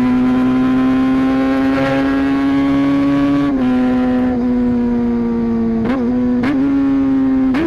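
Motorcycle engine running at a steady cruising speed, a constant drone with short clicks and small dips in pitch about three and a half and six seconds in.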